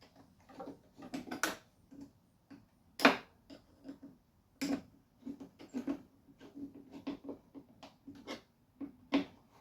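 Flathead screwdriver tightening the screws that hold the air intake on an Echo PB-8010 backpack blower. It makes a series of short, irregular clicks and scrapes of metal on metal and plastic, the loudest about three seconds in.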